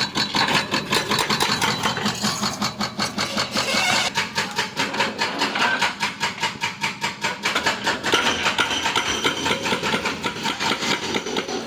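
Excavator engine running with a rapid, even clatter, its tone shifting slightly a few times.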